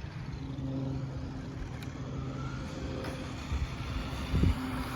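Kyosho Cosmo radio-controlled buggy's electric motor and drivetrain running as it is driven, a steady mechanical hum with a low thump about four and a half seconds in.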